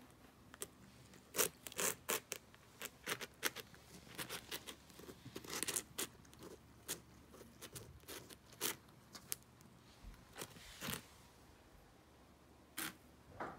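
Domestic cat chewing a piece of pizza: irregular crunching, clicking bites, coming thick and fast over the first half, then sparser.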